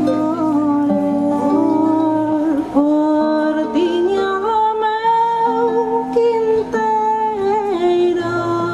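A woman singing to her own harp accompaniment: plucked harp strings under a sung melody of held, gently wavering notes.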